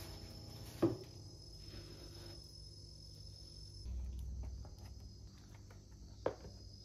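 Thin plastic shopping bag rustling faintly as boxed snacks are lifted out onto a wooden counter. There are two short sharp knocks, one about a second in and one near the end.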